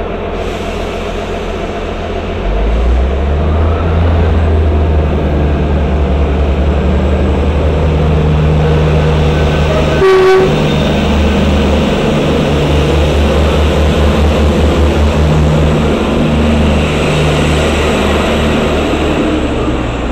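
Diesel multiple-unit train pulling in alongside the platform, its underfloor diesel engines rumbling from about two seconds in, with a throbbing beat for a few seconds past the middle. A short, sharp sound cuts through about halfway.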